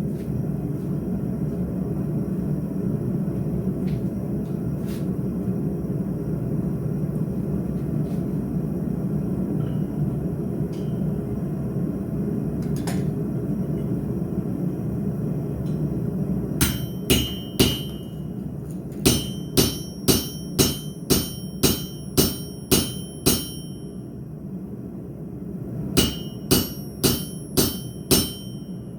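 Blacksmith's hammer striking hot steel on an anvil in three runs of ringing blows, about two a second, starting a little over halfway through. Before the hammering, a forge runs with a steady low roar.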